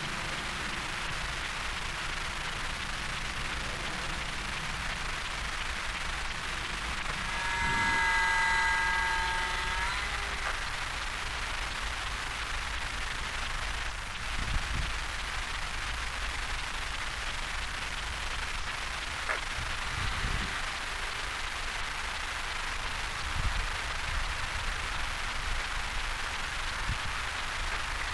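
Steady hiss and low rumble from the poor built-in microphone of a pair of camcorder sunglasses. About 8 s in, a steady whining tone lasts a couple of seconds.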